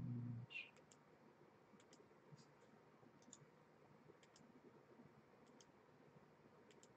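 Faint computer mouse clicks, scattered about once a second, some in quick pairs, over quiet room tone. A brief murmur of voice at the very start.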